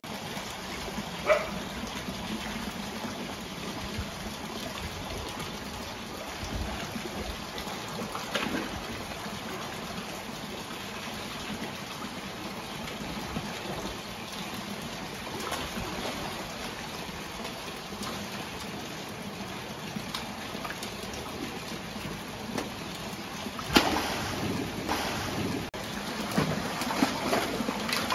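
Water trickling and splashing steadily into a concrete crocodile pool, with a few sudden splashes from the crocodiles, the loudest about 24 seconds in and several more near the end.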